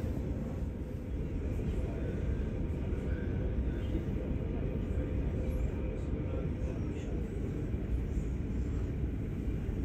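Steady low rumble of a moving Mittelrheinbahn regional electric train, heard from inside the passenger car, with a faint steady hum over it.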